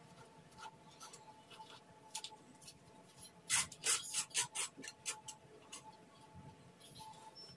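Kitchen knife chopping raw potato on a plastic cutting board: scattered light taps, with a quick run of sharper chops about three and a half seconds in.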